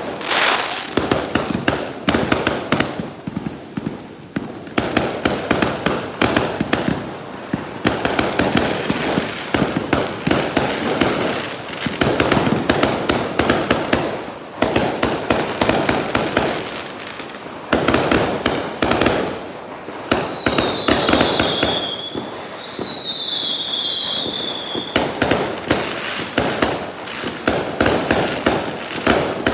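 Fireworks going off in a dense, rapid stream of bangs and crackles, with short lulls. About two-thirds of the way in, a high wavering whistle sounds over the bangs for several seconds.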